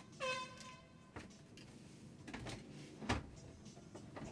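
A short horn blast, about a second long with a brief dip in pitch as it starts, followed by a few faint knocks and thumps.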